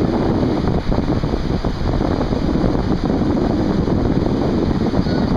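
Wind buffeting the microphone over the steady wash of breaking surf.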